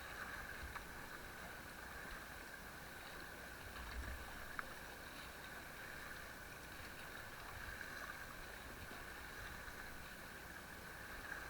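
Steady rush of river water around an inflatable raft as the crew paddles forward, with a few faint clicks.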